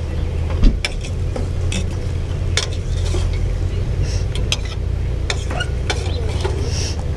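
A metal utensil stirring in a stainless steel pot on a camp stove, clinking against the pot's sides about once a second, over a steady low rumble.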